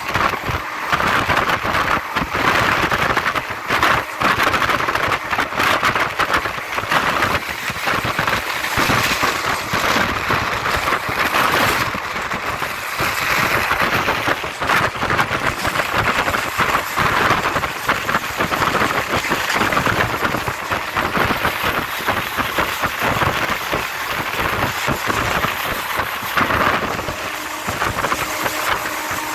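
Train running at speed, heard at an open coach door: a loud, steady rush of wind and wheel noise, with irregular rattling and clatter from the wheels on the rails.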